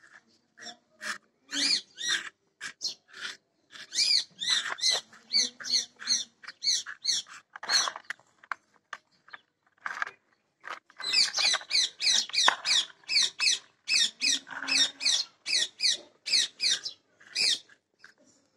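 An animal's rapid high-pitched chirping calls, about three to four a second. They come in two long runs with a short break about ten seconds in.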